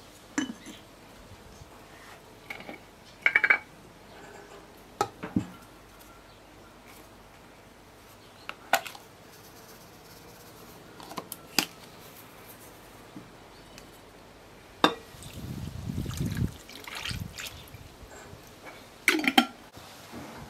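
Bread ingredients being added to a metal bowl of flour: scattered clinks and taps of a tin and jars against the bowl and table, and dry yeast shaken in. About fifteen seconds in, a liquid is poured in with a brief low rush, and it ends in hand mixing with a couple of knocks against the bowl.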